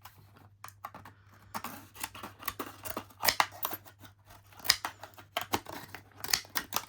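Heavy-duty scissors cutting through a padlock's retail packet: a series of irregular sharp snips and crunches, getting louder and closer together in the second half.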